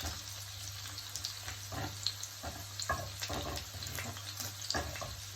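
Food frying in a hot pan: a steady sizzling hiss with a few faint ticks.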